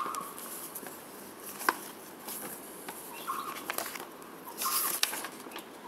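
Paper rustling as textbook pages are turned, in a few short bursts, with a sharp click about a second and a half in.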